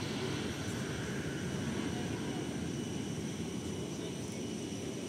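Jet engines of a distant widebody airliner rolling along the runway: a steady low rumble with a lighter hiss above it, easing off slightly.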